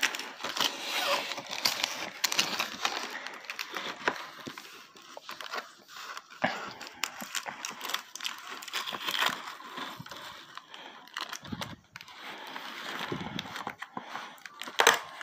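Hands rustling and scraping at a toy belt's cardboard-and-plastic packaging, with many small clicks and crackles as the fastenings holding the belt are worked loose.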